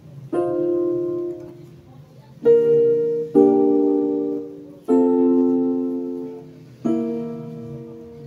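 Yamaha portable keyboard on its grand piano voice playing a slow chord progression: five chords, each struck and left to ring and fade.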